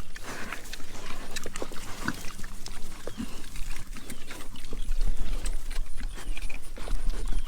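Several pigs feeding on food scraps from pans, with chewing and scattered clicks and knocks.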